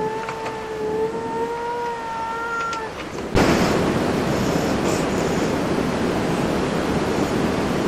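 Black cat giving a long, drawn-out meow at a fairly steady pitch, ending about three seconds in. Then a loud, steady rushing hiss starts abruptly and continues, louder than the meow.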